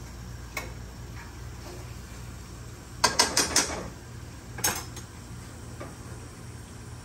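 Metal utensil clinking against a stainless steel sauté pan while stirring: a single clink early, a quick run of about five clinks about three seconds in, and one more a second or so later.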